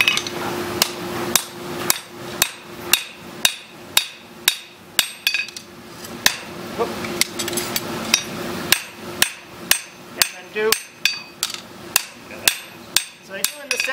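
Hand hammer striking a welding-hot ring on an anvil in steady blows about two a second, setting a forge weld at the scarfed joint.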